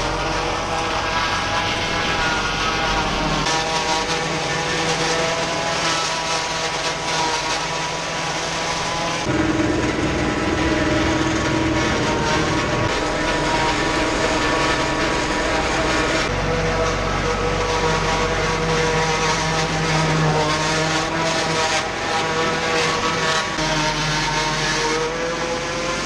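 New Holland TN70DA tractor's diesel engine running steadily under load, driving a Sip Vihar 40 one-row corn chopper, with a steady hiss of chopped corn blowing from the spout into the trailer. The mix of engine and chopper noise shifts abruptly about 9 and 16 seconds in.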